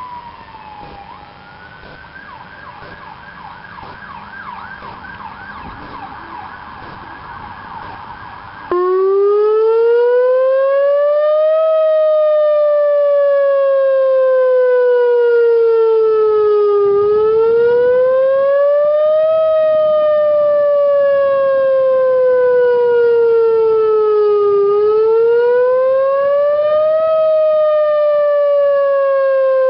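Whelen WPS-2904 electronic outdoor warning siren sounding a wail test tone. It comes in suddenly and loud about nine seconds in, then rises in pitch over about three seconds and sinks over about five, over and over. Before it starts, fainter wavering siren tones are heard.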